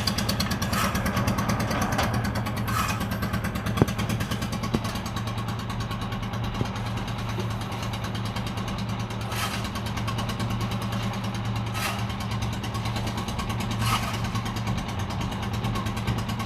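An engine running steadily at an even speed, with several short sharp sounds on top at irregular moments.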